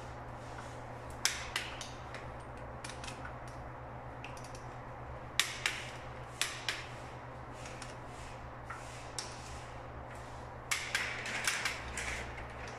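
Long-handled ratchet wrench clicking as it tightens a nut on a high-voltage cable termination head: sharp metal clicks, singly and in pairs, with a quick run of clicks near the end. A steady low hum runs underneath.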